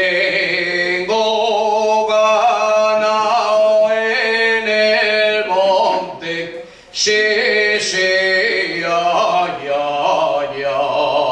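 Unaccompanied singing of a Cantabrian tonada montañesa, a male voice leading with long, ornamented held notes. The line breaks off briefly about six seconds in, then resumes.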